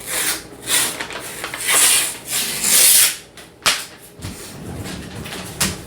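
Paper wrapper being torn and peeled off a tube can of refrigerated biscuits: a run of short rasping, crinkling tears, with a couple of sharp clicks in the second half.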